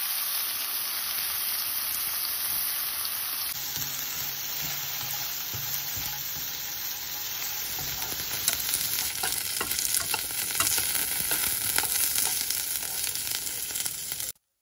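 Food frying in hot oil: sliced onion stirred with a silicone spatula in a pan, then sliced beef and asparagus, a steady sizzle. About halfway through, the sizzle turns louder and more crackly, with sharp spits and pops. It cuts off abruptly near the end.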